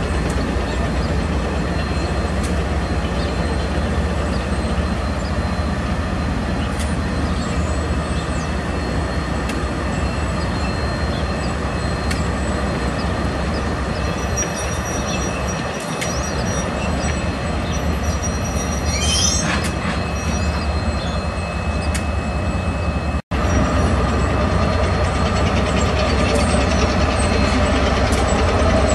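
KiwiRail DL-class diesel-electric locomotive hauling a freight train slowly round a curve: a steady low engine rumble, with scattered clicks of wheels over the rail and a thin wheel squeal on the curve midway through. The sound cuts out for an instant about two-thirds of the way through, then grows louder as the coupled locomotives pass close.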